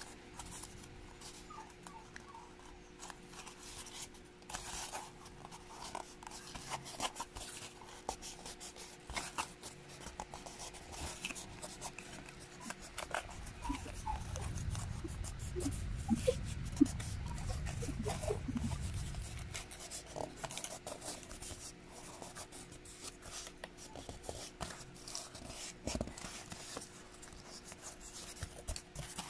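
Corrugated cardboard being cut with a blade and handled: short scratching and scraping strokes with small clicks. A low rumble runs for several seconds in the middle, under a faint steady hum.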